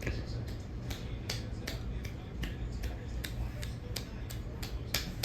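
A 52-inch ceiling fan running, with a sharp click repeating two to three times a second over a steady low motor hum.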